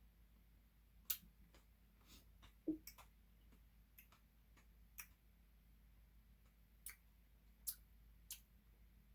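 Near silence broken by scattered small, sharp clicks while someone eats ice cream, about one a second at irregular intervals.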